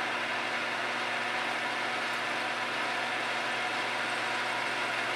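Drill press running steadily, its twist bit drilling a handle-pin hole through the tang of a W2 steel knife blade held in a vise.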